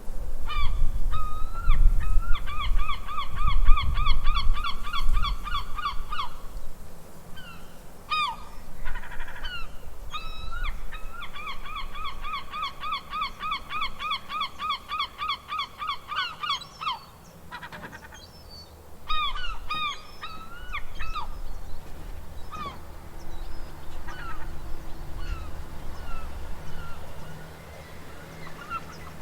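Seagulls calling: two long runs of rapid, evenly repeated yelping calls, about four a second, with single calls scattered between and after. A low rumble sits underneath in the first few seconds.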